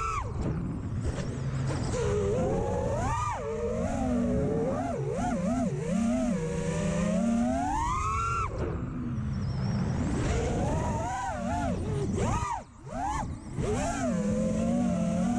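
Armattan Rooster FPV quadcopter's brushless motors and propellers whining, the pitch rising and falling sharply with the throttle through flips and dives. The sound drops away briefly about twelve and a half seconds in, then comes back.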